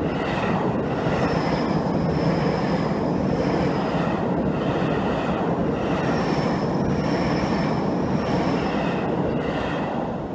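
Seibu 30000 series electric train passing close at a level crossing, a steady loud rumble of wheels on rails. A thin high wheel squeal comes and goes twice. The crossing warning bell rings faintly under it.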